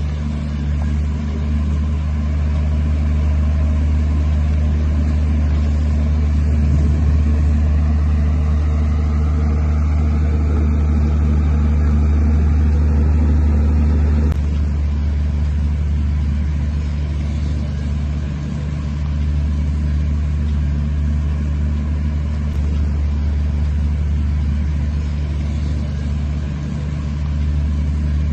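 Heavy construction machinery's diesel engine running steadily with a deep drone. It is a little louder for the first half and drops back suddenly about halfway through.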